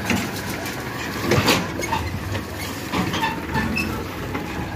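Powertrac Euro 50 tractor's diesel engine running as it tows a loaded trailer through muddy ruts, with the trailer body rattling and giving several sharp knocks.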